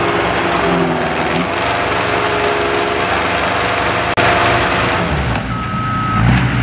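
Engine of a remote-controlled tracked house-moving machine running steadily under load as it pushes a modular home section, its note shifting about a second in. A steady high beep sounds near the end.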